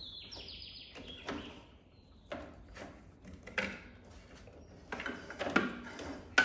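Gloved hands handling heavy-gauge wires and insulated multi-tap connectors at a metal breaker panel: scattered faint knocks, clicks and rubs. A short, stepped, high chirping tone sounds in the first second or so.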